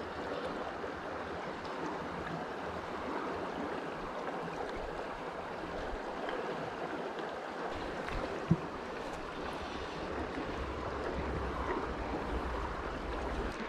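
Mountain river running: a steady rushing of water, with one sharp click about eight and a half seconds in.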